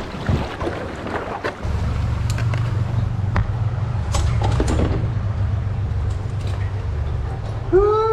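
Light knocks and water noise from a paddled boat, then a steady low rumble from about two seconds in, with scattered small clicks. A short hummed or spoken sound comes in at the very end.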